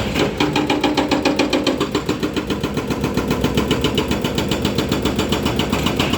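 Volvo EC210D excavator's diesel engine running steadily with a fast, even pulse, with a brief steady tone over it from about half a second to two seconds in.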